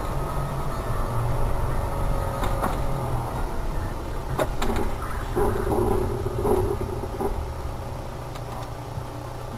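A car driving on a snowy road, heard from inside the cabin as a steady low engine and tyre rumble that eases near the end. A few sharp clicks come about four and a half seconds in, and a brief wavering tone follows about halfway through.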